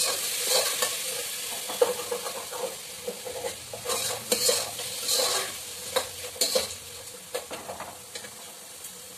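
Chopped onion, tomatoes and green chillies sizzling as they fry in hot oil in an aluminium pot, stirred with a metal spoon that scrapes and clinks against the pot. The stirring is busiest over the first seven seconds, then the sizzle goes on quieter.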